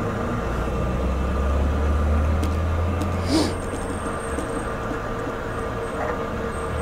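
Motorcycle being refuelled from a fuel-station dispenser: a steady pump hum, with a low vehicle rumble that swells and then fades over the first four seconds. A short hiss comes about three and a half seconds in.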